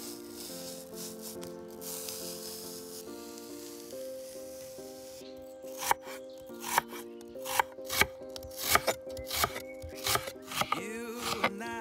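A vegetable peeler scraping along a rhubarb stalk, then a santoku knife chopping through rhubarb onto a wooden cutting board in a run of crisp cuts, about two a second, over soft background music.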